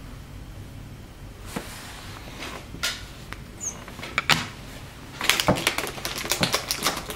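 Hands handling trading cards, plastic card holders and card boxes on a tabletop: scattered clicks, taps and rustles, becoming a quick run of clicks and knocks from about five seconds in.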